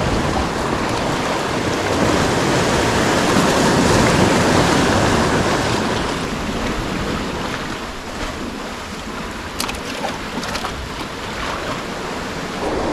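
Sea surf washing and breaking against the rocks at close range, a dense wash of noise that eases after about six seconds. A few faint light clicks come near the end.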